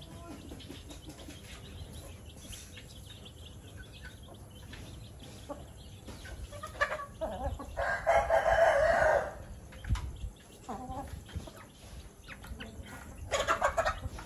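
Chickens clucking as they forage on the ground. A rooster crows once, about eight seconds in, for over a second. There is a short loud burst of calls near the end.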